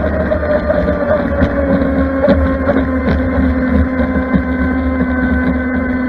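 Brushless electric motor of a Pro Boat Blackjack 42 RC catamaran whining steadily as it runs at speed, its pitch dipping slightly early on, with wind rushing over the onboard microphone.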